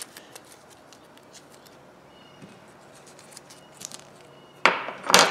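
Small metal clicks and scrapes from handling the parts of a cast 8-inch pipe wrench, then two sharp metal knocks with a short ring near the end, the wrench and parts being set down on the bench.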